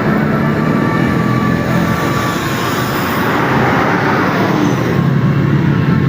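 Large tour bus driving past: steady low engine noise under a rush of road and air noise that swells about two to three seconds in, then eases off.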